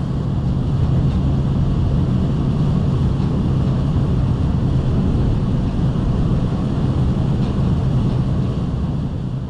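Passenger boat's engine droning steadily while under way, deep and even, with the wake churning behind the stern.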